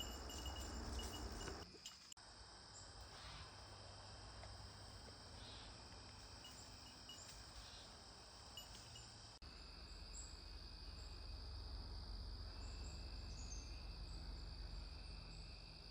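Faint outdoor ambience: insects trilling steadily in a high, even tone over a low rumble, with abrupt shifts in the background about two seconds in and again around the middle.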